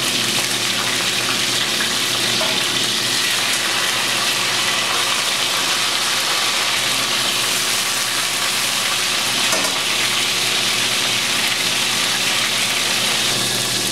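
Flour-dredged boneless short ribs sizzling steadily in hot olive oil in a stainless steel pan as the pieces are turned over, browning to a crust.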